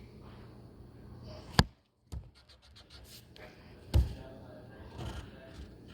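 Pen or pencil scratching faintly on paper while writing, with handling knocks: a sharp tap about a second and a half in, a brief gap of silence just after it, and a heavier thump near four seconds.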